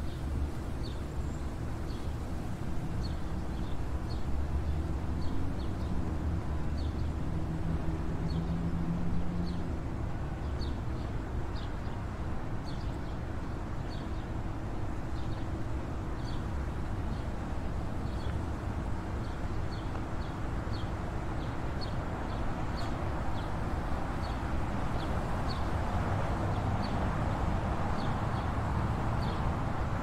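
Sparrows chirping: short single chirps, one or two a second, over a steady low background rumble.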